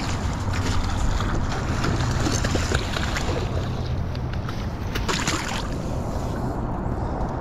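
Water splashing and crackling as a hooked chum salmon thrashes at the surface close in, over a steady rumble of wind on the microphone. The splashing eases off about two thirds of the way through.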